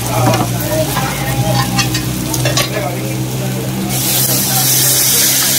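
Light clinks of steak-and-rice sizzling plates being handled. About four seconds in, a loud hiss of sizzling starts as gravy is poured onto the hot plates.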